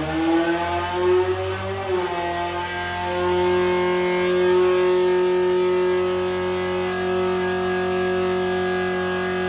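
Opel/Vauxhall C20XE 2.0-litre 16-valve four-cylinder race engine with a reversed cylinder head, running on a water-brake engine dyno. It revs up over the first couple of seconds and is then held at steady high revs under the dyno's load. It is heard through the glass of the dyno cell's viewing window.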